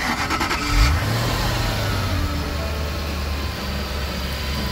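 2003 Ford Thunderbird's 3.9-litre V8 cranking briefly on the starter, catching about a second in with a short flare of revs, then settling into a steady idle.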